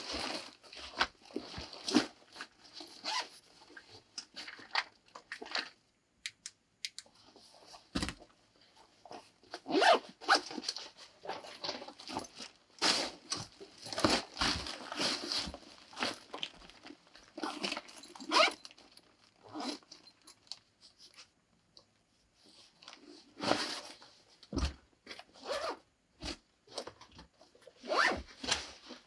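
A large nylon backpack being packed by hand: the fabric rustles and scrapes and its zippers are pulled, in irregular bursts with a couple of short pauses.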